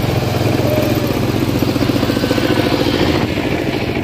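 An engine running steadily at an even speed, with rapid regular firing pulses and a low hum.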